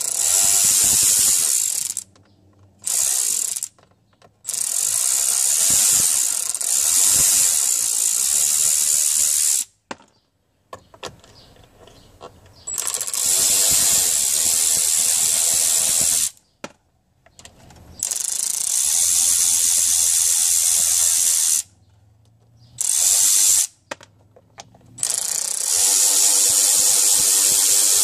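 A Snap-on cordless ratchet running in about seven runs of a few seconds each, with short pauses between them, as it backs out the screws of a steering column trim cover. It makes a high-pitched whirr.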